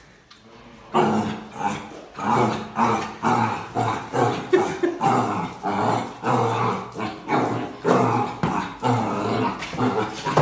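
A black puppy barking at its own reflection in a mirror: after about a second of quiet, a steady run of short barks, about two a second.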